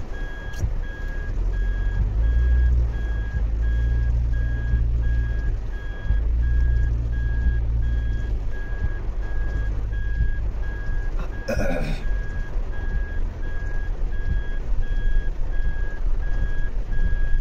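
A car's in-cabin warning beeper sounding a rapid, even series of identical beeps over the low rumble of the car in heavy rain. A brief scraping noise breaks in about eleven and a half seconds in.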